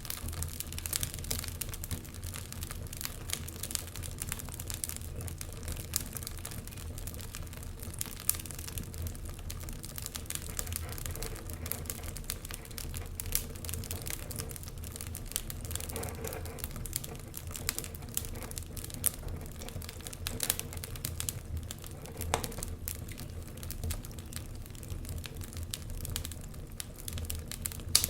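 Fireplace fire crackling with irregular sharp pops over a low, steady rumble; one of the loudest pops comes near the end.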